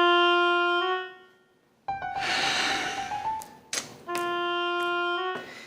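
Dramatic music sting: a held, reedy note that steps up in pitch at its end, a noisy swell, then the same held note again.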